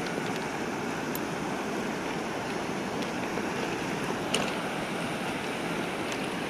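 Swollen river in flood rushing and churning around a brick bridge pier: a steady rush of fast-flowing water. A single short click about four seconds in.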